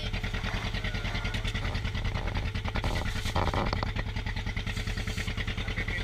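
Small fishing boat's engine running steadily with a fast, even chugging of about nine beats a second.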